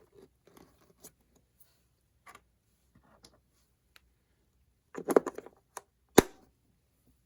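Light plastic clicks and taps as AA batteries are handled and fitted into the battery compartment of a Spektrum DX6i radio-control transmitter. A short cluster of clatter comes about five seconds in, followed by one sharp click about a second later.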